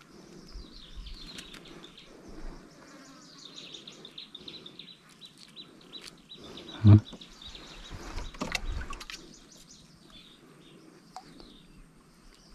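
Birds chirping repeatedly in the background, with one short loud thump about seven seconds in and a brief burst of noise soon after.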